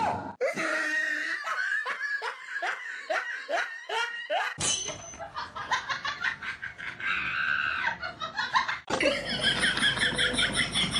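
People laughing hard, a run of quick repeated laughs in the first few seconds; the sound changes abruptly about four and a half and nine seconds in as it cuts from one clip to the next, with more laughing and voices after each cut.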